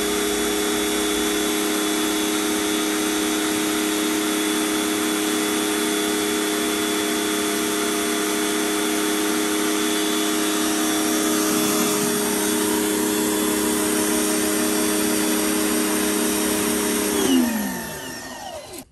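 Greenworks 2000 PSI electric pressure washer with its 13-amp motor and pump running, a steady hum over a loud hiss. Near the end the motor winds down with a falling pitch and stops.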